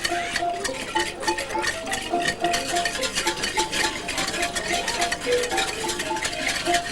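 Instrumental music: a melody of short, separate notes over a quick, steady rattling percussion.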